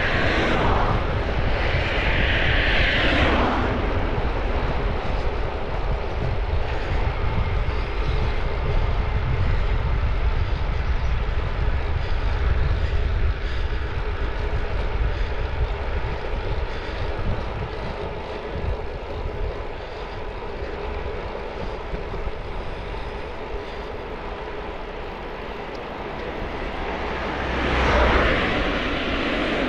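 Wind rushing over the microphone with tyre noise from an e-bike riding along a road at about 25 km/h, a steady low rumble throughout. Two louder rushing sweeps that drop in pitch stand out, one in the first few seconds and one near the end.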